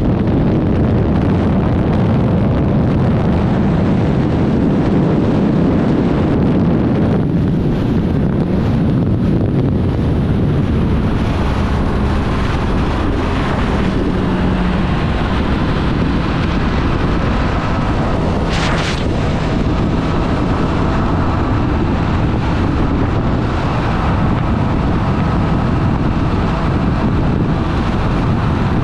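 Triumph Street Triple 765 RS's inline three-cylinder engine running while riding, largely covered by steady wind rush on the microphone. A brief sharp sound comes about two-thirds of the way through.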